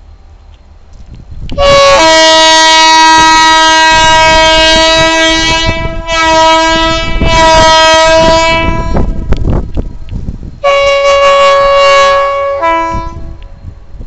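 Freight locomotive's multi-tone air horn sounding loud long blasts: one of about seven seconds with a brief break near the middle, then a shorter one of about two seconds whose chord shifts just before it stops. It is a warning to a woman walking across the tracks ahead of the train.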